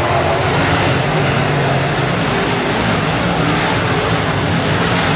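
A pack of dirt semi late model race cars' V8 engines running hard together in a loud, steady drone, their engine notes shifting slightly as the cars pass.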